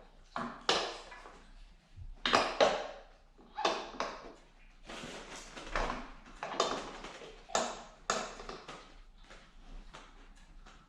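Metal Pit Bull rear paddock stand clanking and knocking against the motorcycle as it is worked into place under the swingarm, a run of irregular sharp clatters with short ringing, the two loudest about two seconds in.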